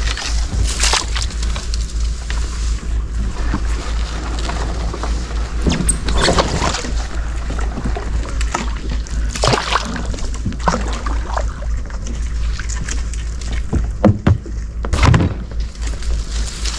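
Shallow water sloshing and splashing, with several sharper splashes scattered through, over a steady low rumble.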